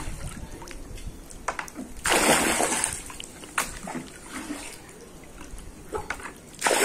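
Pool water splashing and sloshing as the leftover diluted chlorine at the bottom of a container is rinsed out into the pool. There are two loud splashes, one about two seconds in and one near the end, with small drips and knocks between them.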